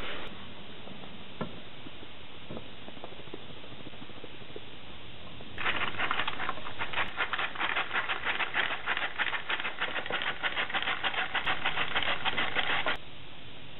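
Molding sand being shaken through a hand sieve (riddle) into a wooden drag flask: a fast, dense rattling patter that starts suddenly partway through and stops abruptly about a second before the end.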